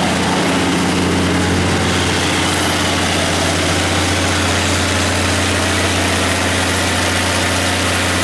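Cummins NT855G turbocharged inline-six diesel engine of an Onan 230 kW generator set, running at a steady speed with an even, unchanging note.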